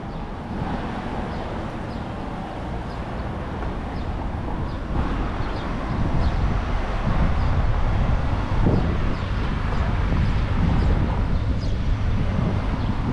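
Street ambience of passing traffic, with wind on the microphone, growing louder about five seconds in.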